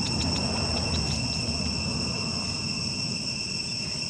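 Insects shrilling steadily in several unbroken high tones, with a low rumble underneath.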